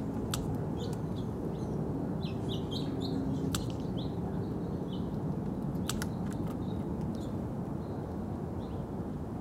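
Small birds chirping: short, scattered high chirps over a steady low background rumble, with a few sharp clicks, two of them close together about six seconds in.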